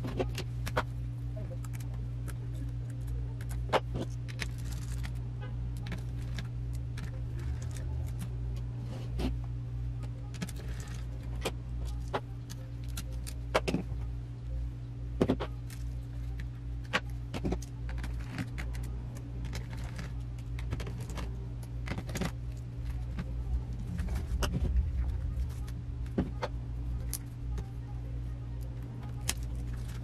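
Irregular sharp clicks and light taps of a screwdriver, screws and small parts being handled inside an opened Lenovo Legion 5 laptop as it is taken apart, over a steady low hum.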